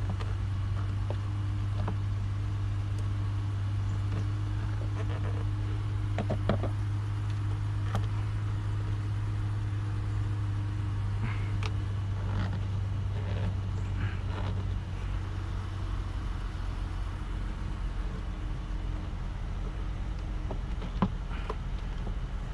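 Scattered clicks and clinks of hand tools working the bolts and clamps of a car's air intake tube in the engine bay, over a steady low hum that weakens about two-thirds of the way through.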